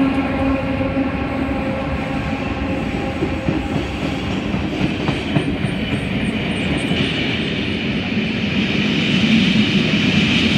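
Heritage passenger train running through a station: the old carriages' wheels clatter steadily over the rail joints. A droning tone fades away just after the start as the lead diesel locomotive moves off. The noise grows louder near the end as the rear steam locomotive comes by.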